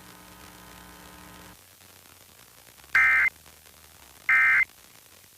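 Emergency Alert System end-of-message code: two short bursts of warbling data tones, each about a third of a second long and about a second and a half apart, closing the required monthly test. Before them, a faint steady hum cuts off about one and a half seconds in.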